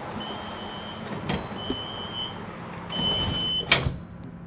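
DUEWAG B80D light-rail car standing with a steady low hum while its door-closing warning sounds three long high beeps, then the doors shut with a loud bang near the end.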